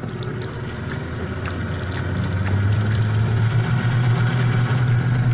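Small boat engine running with a steady low hum that grows louder from about two seconds in.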